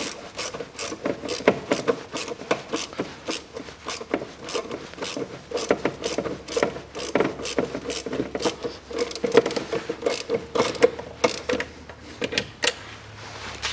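Hand ratchet clicking in rapid back-and-forth strokes as it tightens the air filter housing's mounting bolt. The clicking stops shortly before the end.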